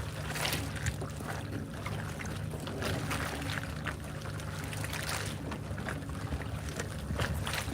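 Steady low hum of a boat's motor running, with water splashing and sloshing now and then.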